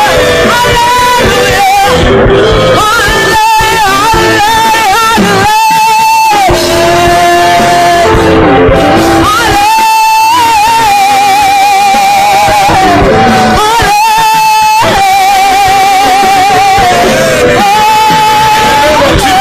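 Music with a singer holding long, wavering notes over instrumental backing.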